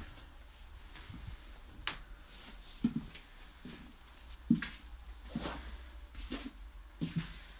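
Footsteps on the floor of an empty city bus, short dull thuds about once a second, over a faint steady low hum.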